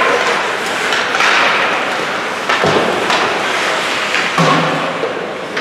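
Ice hockey game sounds echoing in an arena: a steady din of play with thuds and knocks of puck, sticks or bodies against the boards, the sharpest about two and a half and four and a half seconds in.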